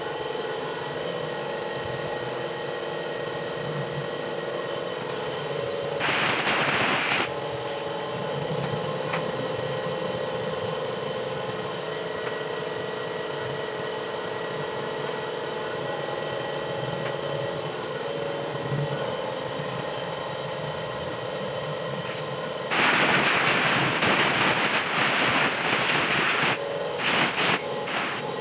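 Compressed-air blow gun hissing in bursts as CVT parts of a scooter are blown clean of cleaning gasoline: one short blast about six seconds in, then a longer, stuttering run of blasts over the last five seconds. A steady mechanical hum runs underneath.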